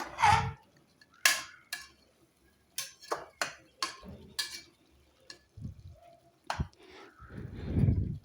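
Spoon stirring food in a cooking pot, mixing tomato paste through: a run of separate clicks and scrapes of the spoon against the pot, with a louder, lower rumble near the end.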